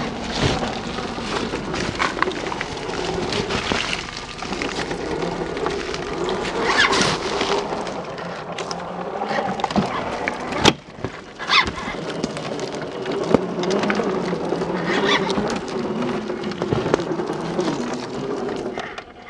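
1/10-scale RC crawler on a CC01 chassis driving, its 55-turn brushed electric motor and gears whining with a wavering pitch that rises and falls with the throttle, mixed with clicks and crackles of the tyres on dirt, twigs and pine needles. The sound breaks off briefly about ten seconds in.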